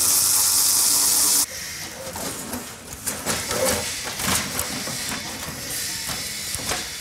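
A cordless power tool runs loudly on the front bumper bolts of a 1969 Dodge Charger for about a second and a half and cuts off suddenly. Then come scattered knocks and clanks of the loosened steel bumper, valance and grille parts being handled and lifted off.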